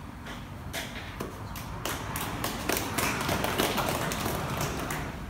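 Audience applauding: a crowd of hand claps that starts about a second in, fills out, then thins near the end.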